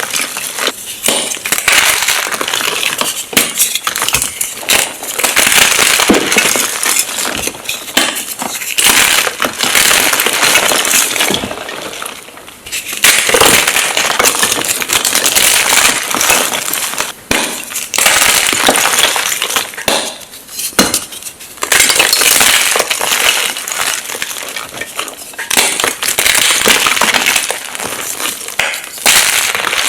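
Blocks of magnesium gym chalk being crushed and crumbled, a dense, crisp crunching and crackling that pauses briefly twice.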